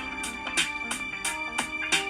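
Background music with a steady beat of about two strokes a second over held notes.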